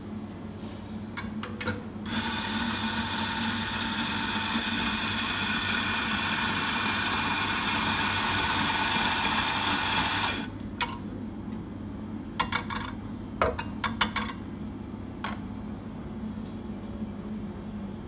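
Electric espresso grinder running for about eight seconds with a steady whine as it grinds beans into a portafilter, stopping abruptly. A few sharp clicks and knocks follow.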